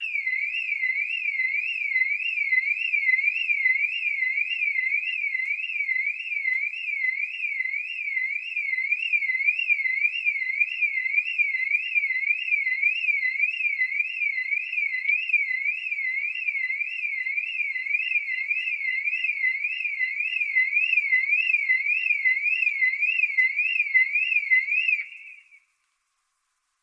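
Car alarm siren wailing: a single tone sweeping up and down about twice a second in an unbroken, unchanging pattern, then cutting off near the end.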